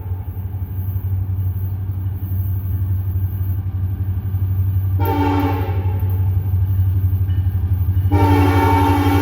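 Approaching diesel freight train led by an EMD SD70ACe-type locomotive, its low engine drone growing louder. Its five-chime K5LLA air horn sounds a short blast about five seconds in, then a long blast near the end, the closing short-long of a grade-crossing signal.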